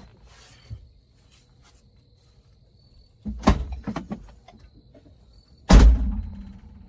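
Handling noise from plastic interior trim and light parts: a quick cluster of clicks and rattles a little past the middle, then one loud knock that dies away over about a second.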